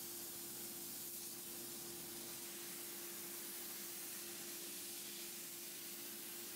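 Small soda blaster's nozzle hissing steadily as compressed air and baking soda stream onto the wood, stripping the old finish. A steady hum runs beneath it.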